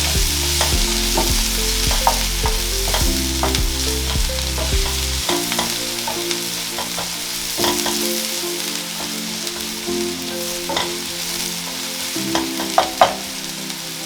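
Onions sizzling in hot oil in a frying pan as they are stirred, with a utensil clicking against the pan now and then and two sharper knocks near the end.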